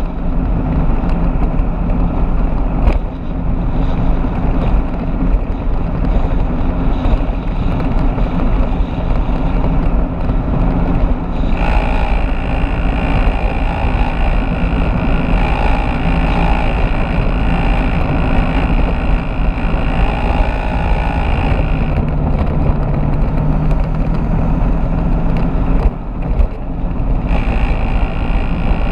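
Motorbike cruising at road speed: steady wind rush on the bike-mounted camera's microphone over the engine and tyre noise. A higher hiss joins about a third of the way in, drops away about two-thirds through, and returns near the end.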